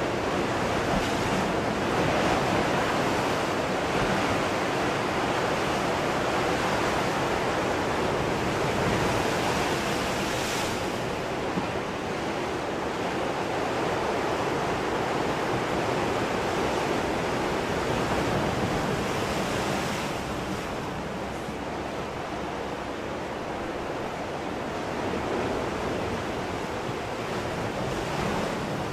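Ocean surf: waves breaking and washing ashore in a continuous rush that swells and eases slowly.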